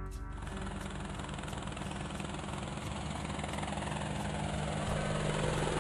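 Helicopter sound effect: rotor blades chopping over a steady engine hum, growing gradually louder as the helicopter approaches.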